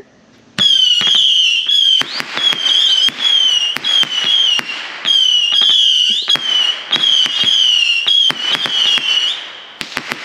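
Consumer fireworks firing a rapid volley of small whistling rockets: loud, overlapping shrill whistles that waver in pitch, with sharp cracks in between, for about nine seconds, then a few last pops near the end.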